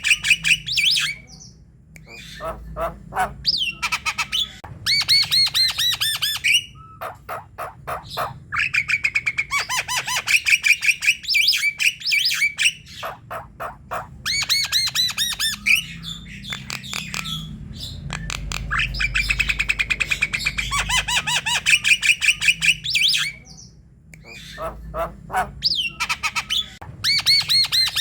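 Javan myna calling energetically: phrases of rapid, harsh repeated notes and squawks, each a second or two long, with short pauses between them.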